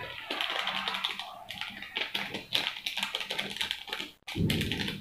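Small plastic seasoning sachet crinkling and crackling in the fingers as it is torn open and squeezed over a plate of instant noodles, with many fine quick ticks. A brief low thump comes near the end.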